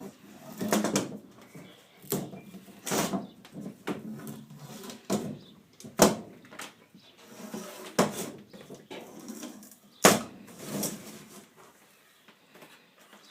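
Rubber screen spline being pried and pulled out of the channel in a window screen frame: irregular scraping and rubbing with sharp clicks and knocks against the frame, the two sharpest about six and ten seconds in.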